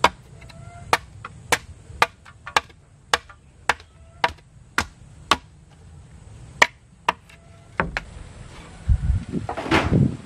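Machete blade chopping into a wooden plank, steady sharp strikes about two a second, a dozen or so in all. Near the end the chopping stops and a longer, louder scraping clatter follows.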